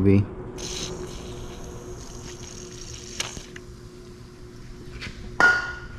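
WD-40 aerosol can spraying in a steady hiss for about three seconds, filling a fuel injector. Near the end, a single sharp metallic clink with a brief ring.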